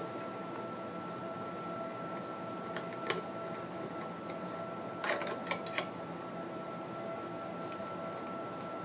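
Handle puller clicking against a chrome bathtub faucet handle as its screw is turned to draw the handle off: one click about three seconds in, then a quick cluster of four around five seconds in. Under it runs a steady faint hum with a thin high tone.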